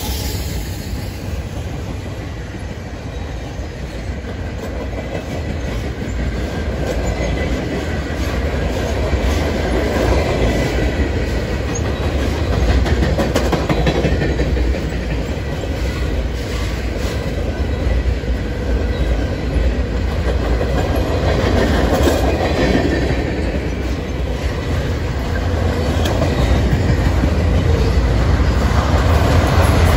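Loaded flatcars of a BNSF freight train rolling past: a steady rumble of steel wheels on rail, with wheels clicking over the rail joints.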